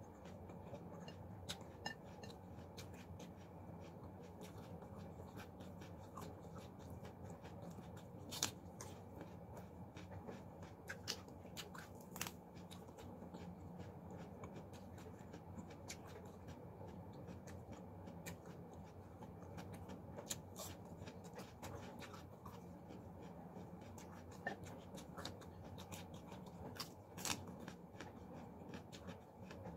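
Faint eating sounds: scattered sharp clicks and crackles of fingers picking food off a plate and of chewing, over a low steady hum.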